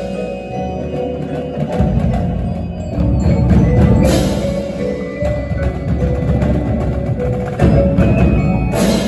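Indoor percussion ensemble playing: marimbas and other mallet keyboards sounding dense pitched notes over marching snare, tenor and bass drums, with two crashes, one about four seconds in and one near the end.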